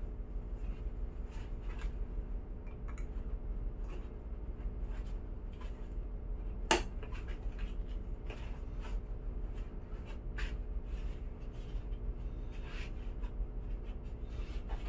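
Rustling and scraping of a foam life jacket and its nylon webbing strap being handled and fastened, over a steady low hum. One sharp click stands out about seven seconds in.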